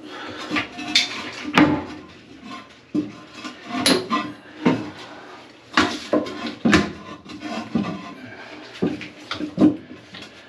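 Irregular knocks and clatter of hard objects being handled, about a dozen sharp strikes with short ringing after some.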